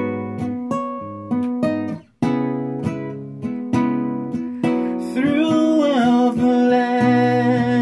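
Acoustic guitar strummed and picked, each chord ringing out, with a brief break about two seconds in. About five seconds in a voice comes in singing long, wavering held notes over the guitar.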